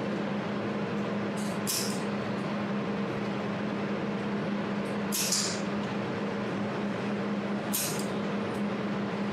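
Jewelry laser welding machine running with a steady hum over a fan-like noise. Several short, high hissing bursts come at irregular moments.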